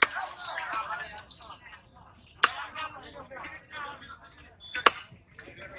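A large fish-cutting knife chopping through a rohu fish into a wooden log chopping block: three sharp strikes about two and a half seconds apart, with voices in the background between them.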